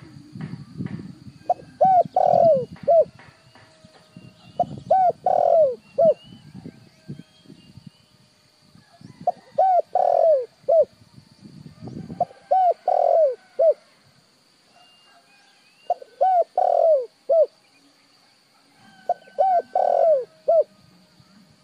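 Spotted dove cooing: six phrases of about four to five coo notes each, one every three to four seconds. A steady high whine runs faintly behind it throughout, and a low rumble underlies the first half.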